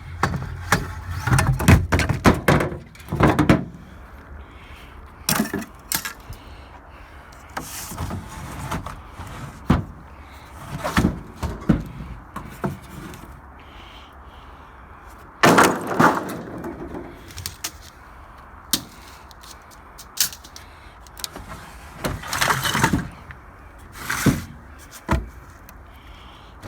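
Wooden 2x4 boards being handled, with loud, irregular knocks and clatters of lumber banging together, in bursts.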